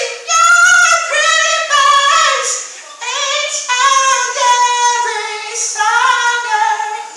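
A woman singing a cappella, with no accompaniment: phrases of held notes that slide up and down in pitch, broken by short breaths.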